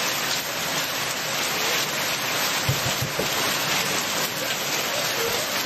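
Heavy rain pouring down steadily, with a couple of low thuds about three seconds in.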